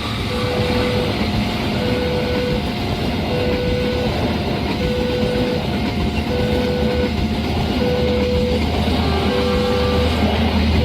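Railway level-crossing warning alarm sounding a lower and a higher tone in turn, about every three quarters of a second, over the steady rumble of a passing train.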